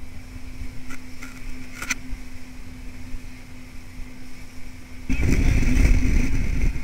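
Rigid inflatable boat's engine running steadily at sea, with a low hum and rumble. About five seconds in, the sound jumps to a loud rush of wind, water and engine as the boat speeds across the waves.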